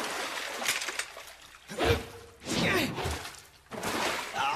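Anime fight sound effects: a run of about four sudden whooshing, splashing hits, some with sliding tones, as a fighter dashes and lands on water.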